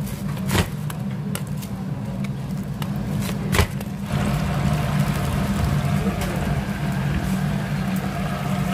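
A jakdu, a lever-style chopping blade, cutting a whole fried chicken into pieces: sharp chops about half a second in and about three and a half seconds in, with lighter knocks between, over a steady low hum. About four seconds in, a steady hiss sets in and stays.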